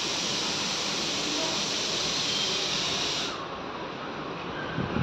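Rain falling with a steady hiss that drops in level about three seconds in. Near the end, gusts of strong wind buffet the microphone with low rumbles.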